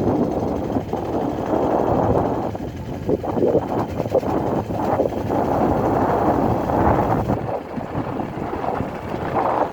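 Wind rushing and buffeting over the microphone of a moving vehicle on a ride, mixed with the vehicle's running noise. The rush is steady, dropping slightly near the end.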